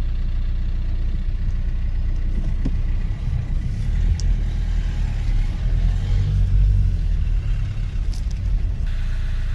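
Mercedes-Benz A180d's diesel engine idling with a steady low rumble that swells a little in the middle.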